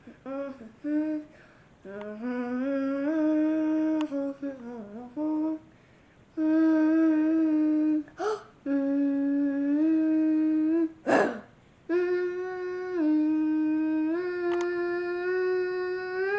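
A person humming a song tune without words, unaccompanied, in long held notes with slides between them and short pauses. There is a brief breathy burst about eleven seconds in.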